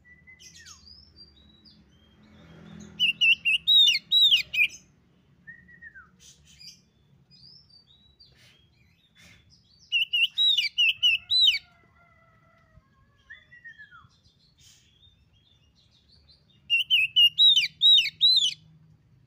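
Oriental magpie-robin (kacer) singing: three bursts of quick, looping whistled notes, each about two seconds long, with soft scattered notes in between.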